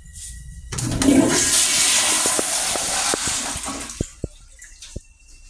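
Tankless wall-hung toilet flushing: a sudden loud rush of water starts about a second in, runs for about three seconds, then tapers off, followed by a few faint clicks.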